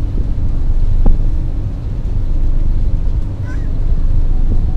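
Steady low drone of a river boat's engine, with wind rumbling on the microphone; a single short knock about a second in.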